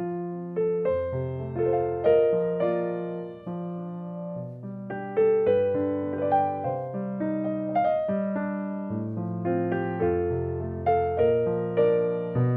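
Background music: solo piano playing a slow, gentle melody over low bass notes.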